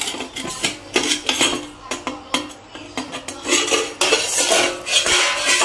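Stainless steel pot lid and metal ladle clinking and clanking against a clay cooking pot as the lid is taken off: a rapid series of metallic knocks and scrapes.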